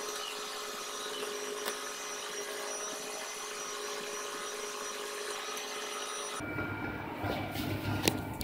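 Steady hiss with faint whining tones, switching abruptly about six seconds in to a low hum, with one sharp click near the end.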